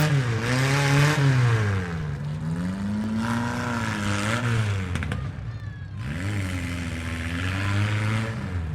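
Demolition derby minivan and mini truck engines revving, their pitch climbing and dropping again every second or two.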